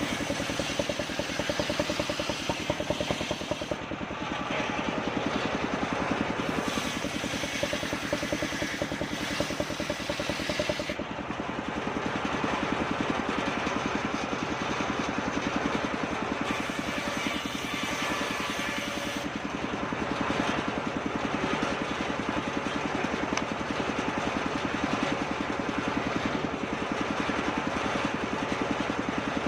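Engine driving a homemade circular sawmill rig, running steadily with a fast, even firing beat.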